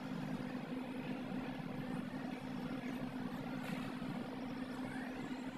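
A steady low hum under a wash of background noise.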